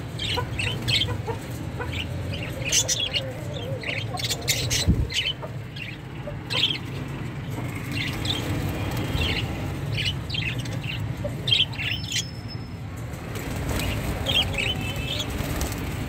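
Budgerigars chirping in many short, scattered calls, over a steady low rumble of movement and handling noise.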